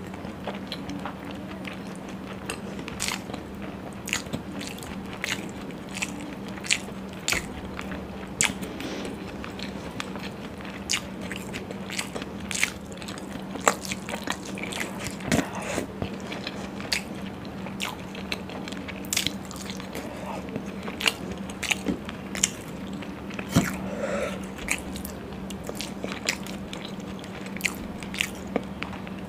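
Close-miked eating of paneer in curry gravy and puri: wet chewing, biting and lip smacks, with frequent sharp mouth clicks at an irregular pace. A steady low hum runs underneath.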